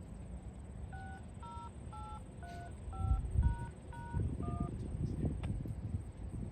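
A string of eight DTMF touch-tone beeps, about two a second, each a short two-note chord, of the kind sent over radio to set off an outdoor warning siren. Low rumbling thumps run underneath and peak midway.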